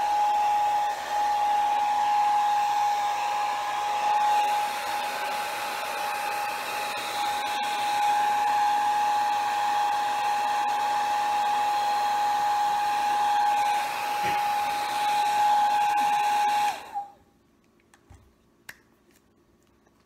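Small handheld hair dryer blowing on air and heat, a steady rush with a steady whine, switched off about three seconds before the end. A few faint clicks follow.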